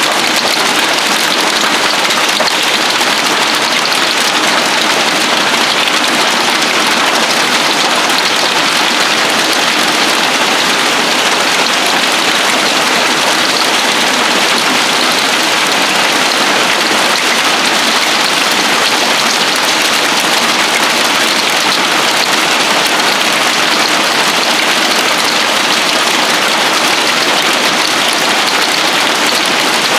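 Hail falling hard on a roof and the ground: a dense, steady patter that never lets up.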